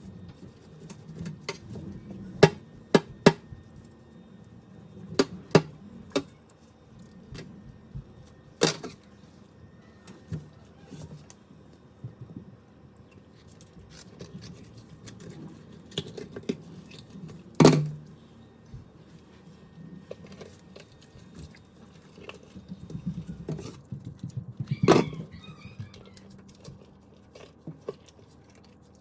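Irregular clicks and knocks from things being handled, as with kitchen utensils and dishes during food preparation, with a few sharper, louder knocks scattered through.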